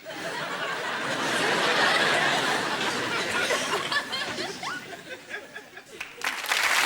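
Studio audience laughing, fading a little, then breaking into applause near the end.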